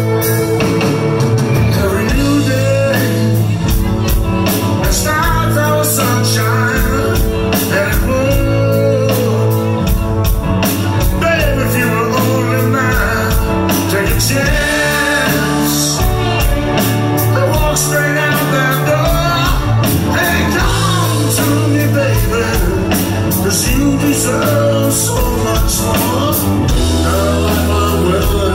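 Live rock band playing an original song: a lead singer singing over electric guitars, bass and drums with a steady beat.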